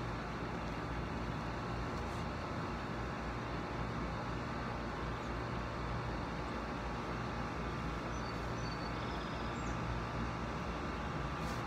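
Steady outdoor background hum and hiss, even throughout, with no distinct events.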